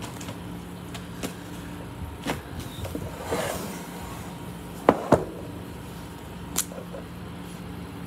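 A framed dry-erase calendar board being shifted on a tabletop: a brief sliding rustle about three and a half seconds in, two sharp knocks around five seconds, and a few light clicks, over a steady low hum.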